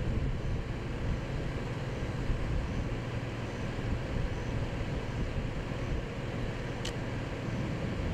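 Steady low rumble with a low hum running under it, and a brief high hiss about seven seconds in.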